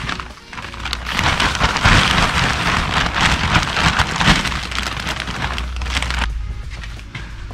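Potting soil poured from a sack into a plastic planter: a dense, grainy hiss with fine crackles that builds up, runs steadily for about five seconds and stops suddenly about six seconds in.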